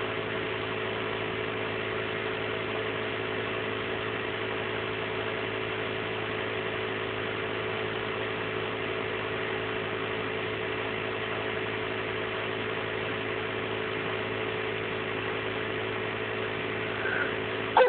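Steady hum of a small running motor, even and unchanging, with a faint short sound near the end.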